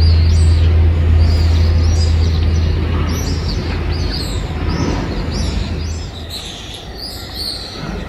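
A flock of swifts wheeling overhead, giving many repeated shrill screaming calls. Underneath runs a steady low hum that fades out about six seconds in.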